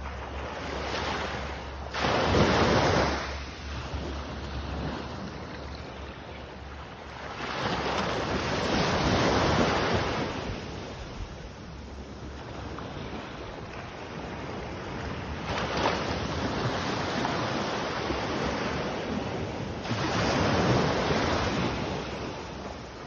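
Small surf washing up the sand in slow surges, each wave swelling and ebbing. The loudest comes about two seconds in. Wind buffets the microphone with a low rumble.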